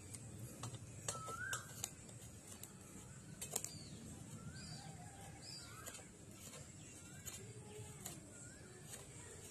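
Short scraping strokes of a Y-peeler shaving the brown skin off a peeled coconut kernel, heard as scattered sharp scrapes, with birds chirping short rising-and-falling calls every second or so.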